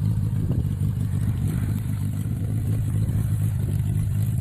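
Homemade off-road buggy's 1600 cc turbocharged engine running steadily, a constant low drone.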